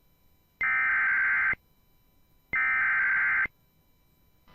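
Emergency Alert System SAME digital header bursts, the data tones that open a NOAA Weather Radio warning. Two harsh, buzzy bursts about a second long, about two seconds apart, each stopping abruptly. They are the last two of the header's three repeats, ahead of a severe thunderstorm warning.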